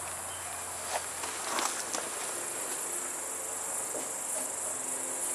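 Crickets chirring steadily, with a few faint knocks, such as handling or footsteps, about a second in and again near the middle.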